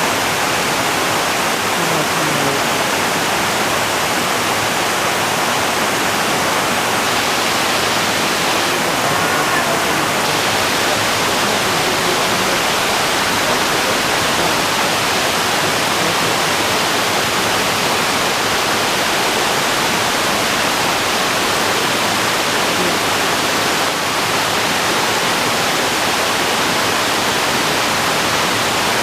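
Waterfall's falling water, a loud steady rush.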